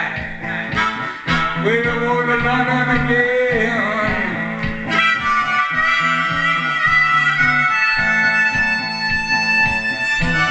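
Amplified D diatonic harmonica (a Hohner Big River) played cupped to a Green Bullet microphone through a vintage amp, with bent, wavering notes at first and higher, fuller chords from about halfway through. Under it runs a looped backing with a steady beat.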